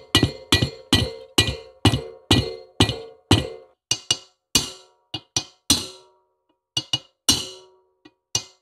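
Hammer tapping a brass drift to drive an O-ringed rocker spindle into a Triumph Tiger Cub's aluminium cylinder head: sharp, ringing metallic taps, steady at about two a second, then slower and uneven from about halfway.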